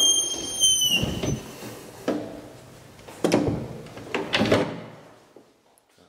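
A door being worked: a high squeal that dips slightly as it stops about a second in, then a run of thuds and knocks about a second apart that die away.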